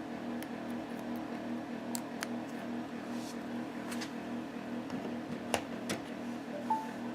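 Several sharp clicks of a phone charger's wall adapter and USB cable being handled and plugged in, over a steady low hum, with a short high beep near the end.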